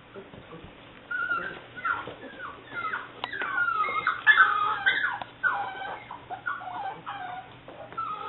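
Seven-week-old English springer spaniel puppy whimpering and yipping, a quick string of high, wavering whines that starts about a second in and is loudest midway.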